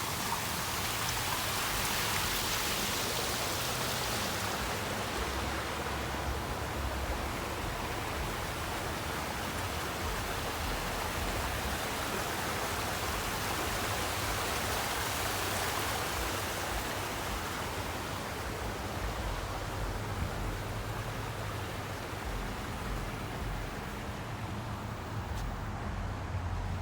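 Steady rush and splash of running water from a garden water feature, with a low rumble underneath. The hiss grows softer near the end.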